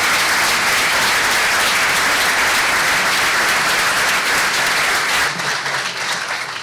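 Audience applauding: dense, steady clapping that thins out and fades over the last second or so.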